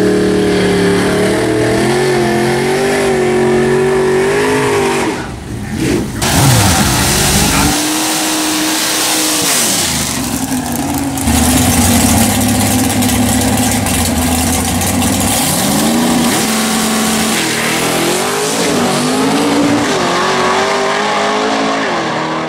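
565 cubic-inch big-block Chevy V8 of a 1966 Chevelle drag car, revving loudly. Its pitch rises and falls many times, with a brief break about five seconds in.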